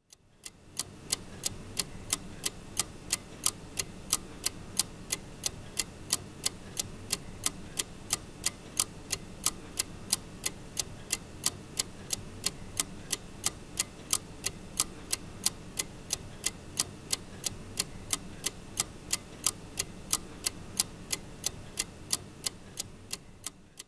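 Clock ticking steadily, a little over two ticks a second, over a faint steady low background noise.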